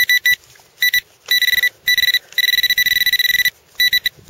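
Garrett pinpointer beeping in a dug hole: a high, steady electronic tone in short beeps that alternate with longer unbroken tones of about a second, signalling a metal target close to the probe tip.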